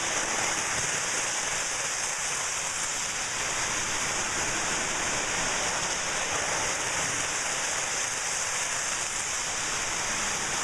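O gauge diesel model train running at full speed around its track: a steady, even rushing hiss with no breaks.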